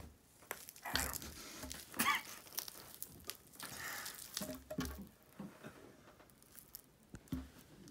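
A banana being torn apart by hand, peel and flesh together: irregular soft tearing and squishing with small clicks, and a few soft thumps as chunks land on a wooden table.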